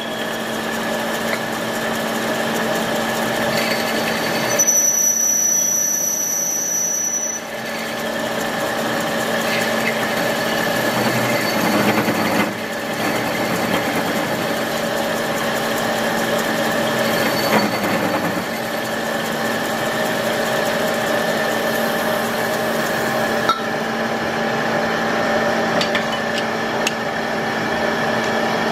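Old belt-driven metal lathe running steadily with a constant hum while a cutting tool turns a metal tube. About five seconds in, a high squeal lasts two or three seconds.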